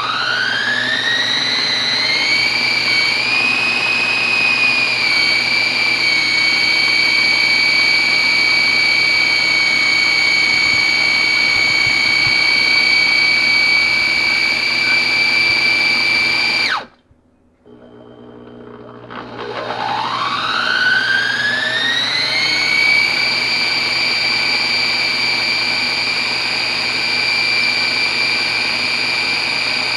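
BEAR baby food maker's blender motor pureeing steamed apples in the blending stage of its automatic cycle: a high whine that climbs to speed at the start and runs steady. About 17 seconds in it cuts out suddenly, then after a second spins back up, rising in pitch over a few seconds, and runs steady again.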